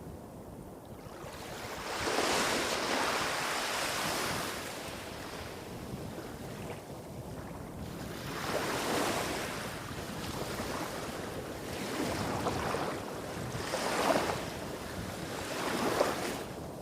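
Small sea waves breaking and washing up a beach, several surges a few seconds apart with the last two sharper. A low rumble of waves hitting rocks further off runs underneath.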